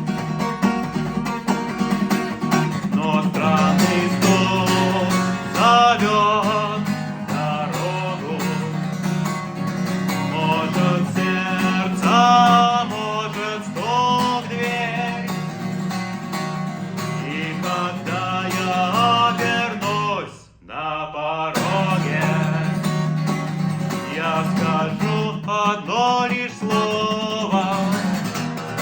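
Acoustic guitar playing a song: steady strummed chords with a wavering melody line over them, broken by a drop of about a second roughly twenty seconds in.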